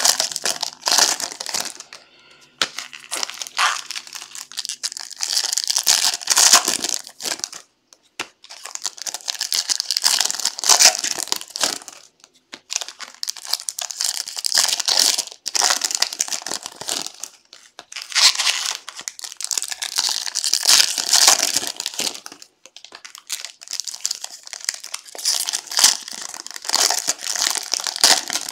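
Foil trading-card pack wrappers being torn open and crinkled by hand, in rustling bouts of several seconds with short pauses between.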